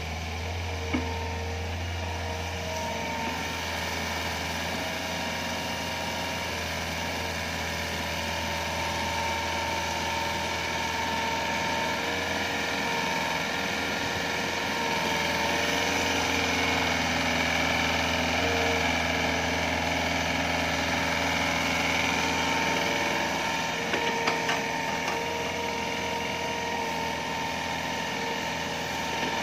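Hitachi Zaxis 48U mini excavator's Yanmar 4TNV88 four-cylinder diesel running steadily as the arm and bucket dig, with steady higher tones over the engine and a few light knocks. It grows slightly louder in the middle.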